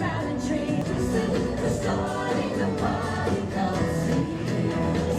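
Parade music with singing playing from the passing floats' loudspeakers.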